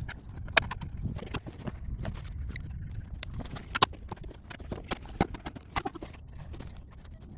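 Scattered clicks and taps as an alarm clock's buttons are pressed and the clock is handled, over a low rumble of handling noise; the sharpest click comes about four seconds in.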